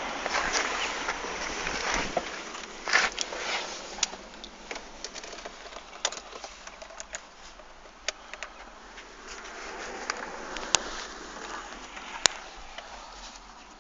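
Audi A6 V6 TDI diesel engine running, heard as a steady rushing noise broken by irregular sharp ticks and clicks, the strange engine sound it is being recorded for. The noise fades gradually.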